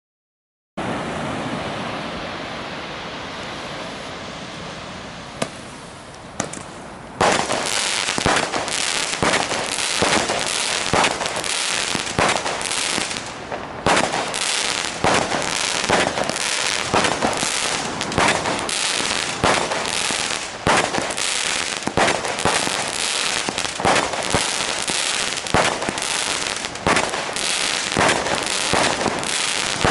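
Weco Ipanema roman candle combination firework firing. It opens with a steady hiss that slowly fades, with one sharp pop. From about seven seconds in it fires a long string of loud shots, roughly one and a half a second, each ejecting a star, over a continuous hiss.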